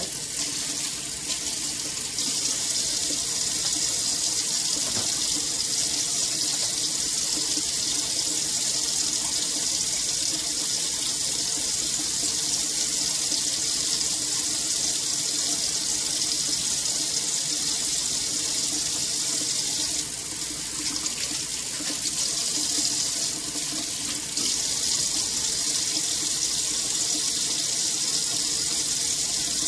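Kitchen faucet running a steady stream of water into a stainless steel sink.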